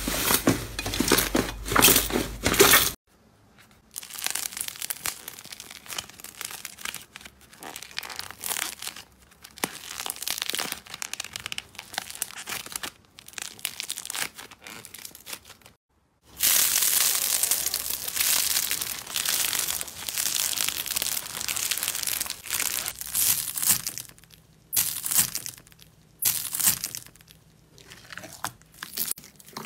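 Slime being squeezed, pressed and poked by hand, making crackling, squishy sounds in irregular bursts. The sound changes character at short breaks about 3 s and 16 s in, and again around 24 s, as it moves from slime flecked with foil, to soft fluffy slime, to slime mixed with foam beads.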